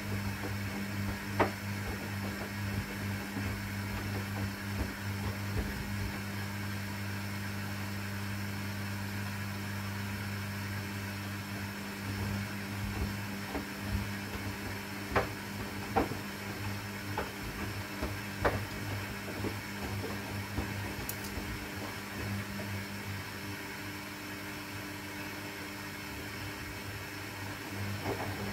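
AEG 8000 Series Lavamat front-loading washing machine running a 20-minute quick-wash cycle: a steady hum with a few sharp clicks now and then.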